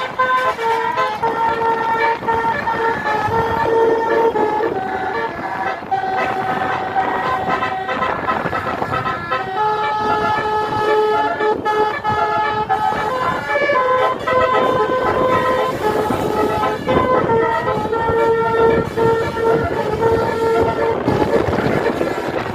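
Indonesian tour-bus 'telolet basuri' horn playing a melody: stacked horn notes, some held for a second or two, stepping from pitch to pitch without pause.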